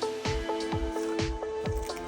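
Background electronic music with a steady kick-drum beat, about four beats a second, under held synth notes.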